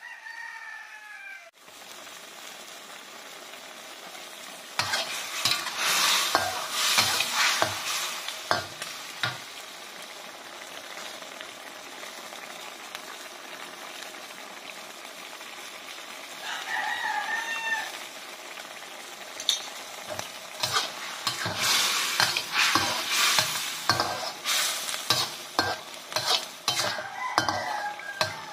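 A metal spatula scrapes and stirs a mushroom stir-fry in a stainless-steel wok over a steady sizzle, in two spells of rapid strokes with quieter simmering between them. A rooster crows in the background about two-thirds of the way through and again near the end.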